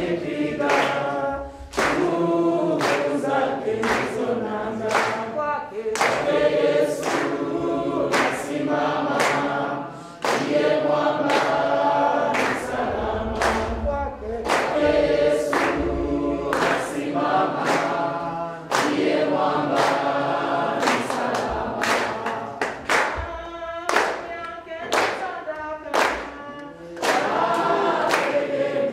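Congregation singing a hymn together, with steady hand-clapping on the beat.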